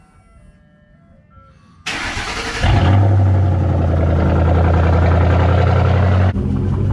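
Ford Mustang GT's 4.6-litre three-valve V8 being started: the starter cranks briefly about two seconds in, then the engine catches and runs at a steady fast idle with a deep rumble, dropping slightly in level near the end as it settles.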